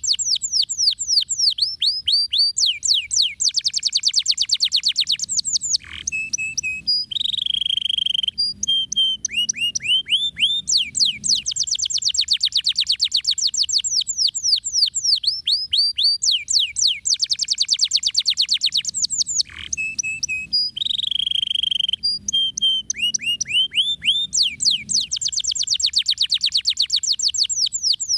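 Domestic canary singing a fast rolling song: long trills of quick, repeated descending whistles, broken by short chips and a lower held note. The same song passage comes round twice, about fourteen seconds apart.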